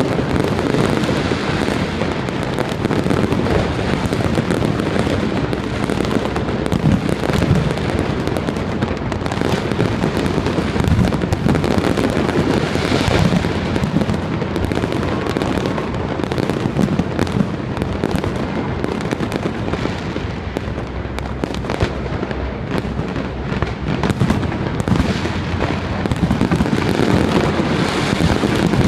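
Fireworks display: a dense, unbroken barrage of bursts and crackling that keeps an even loudness throughout.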